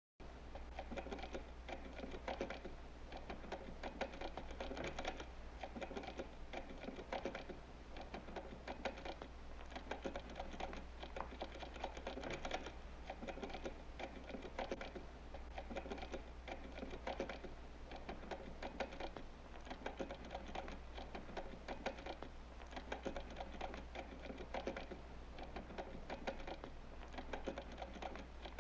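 Fast, continuous typing on a computer keyboard: dense, irregular key clicks with no pauses, over a steady low hum.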